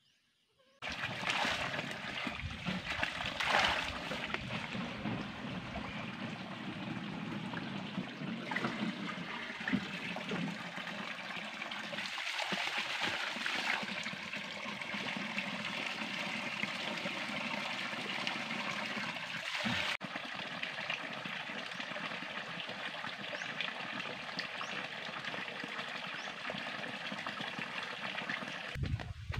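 Water trickling and splashing over rocks at a small spring-fed stream, a steady running-water sound that starts abruptly about a second in.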